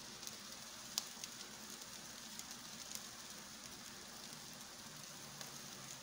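Faint steady sizzling with a few small pops from food cooking in pans on a gas stove: beans simmering beside frying bell pepper.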